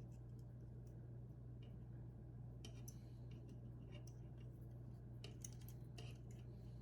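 Faint scattered clicks and taps of small model-kit parts being handled and set down, over a steady low hum.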